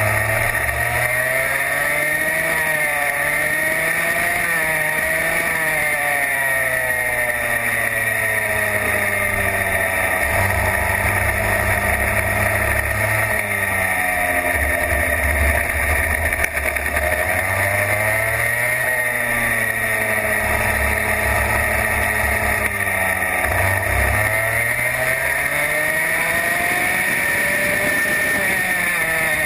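Racing kart engine heard from on board, its pitch climbing and dropping several times as the kart accelerates and lifts around the circuit, over a steady high whine.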